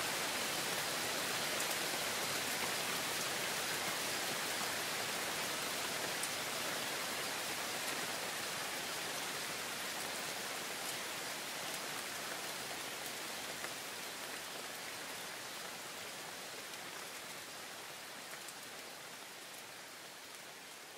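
Heavy rain falling steadily, a dense hiss with scattered drop ticks, fading out gradually over the last several seconds.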